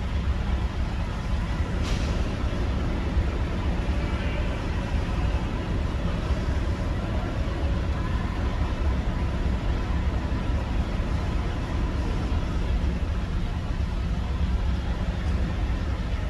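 Steady low rumble of a Ford E150 van running, picked up by a dash cam microphone inside the van, with a single sharp click about two seconds in.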